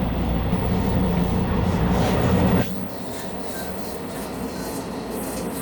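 Running noise of a Taiwan Railways local commuter train at the gangway between two cars: a loud, steady rumble and rattle that drops off suddenly about two and a half seconds in, then carries on more quietly.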